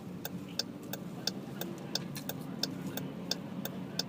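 A car's turn signal ticking steadily, about three ticks a second, over the low hum of the car in motion, heard from inside the cabin while turning left.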